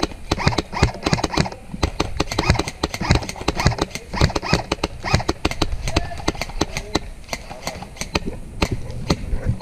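Airsoft guns firing in an exchange of fire, a rapid, irregular run of sharp clicks several times a second, with distant shouting between them.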